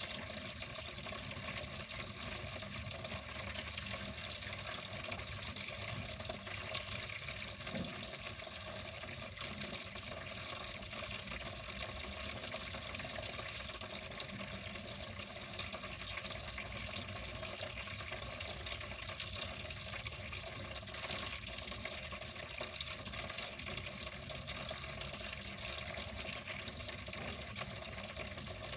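Water flowing steadily, a continuous even rush with no breaks.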